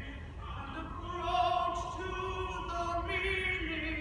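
Singing: a slow, sustained melody with long held notes, as in a rehearsal of a musical number.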